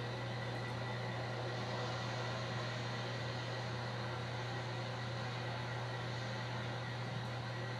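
Steady low drone with hiss on an old home-video soundtrack, like a car's cabin noise at a steady speed.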